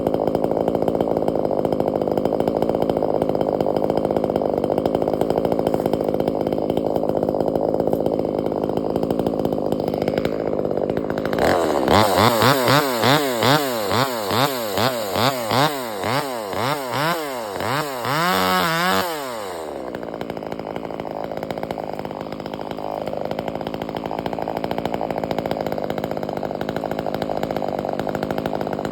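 Two-stroke chainsaw running at idle, then revved in quick repeated throttle blips, about two a second, for several seconds before settling back to idle.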